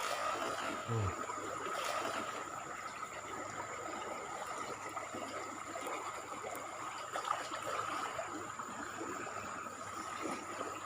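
River current running in a steady hiss, with a faint steady high-pitched tone over it.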